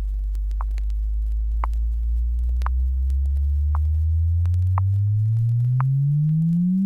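Test-record audio frequency sweep: a single pure sine tone starting very low, around 50 cycles, and gliding steadily upward in pitch, climbing faster in the last couple of seconds. A few faint clicks sound over it.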